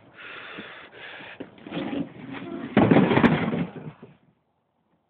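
A lattice floor grate being gripped and lifted off its frame: rustling and scraping, then a burst of clattering and scraping about three seconds in that is the loudest part, stopping abruptly just past four seconds.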